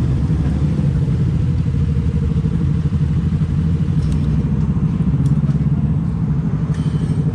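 Kawasaki Z250 parallel-twin engine with an aftermarket SeaPro muffler running steadily at cruising speed, heard from the rider's seat.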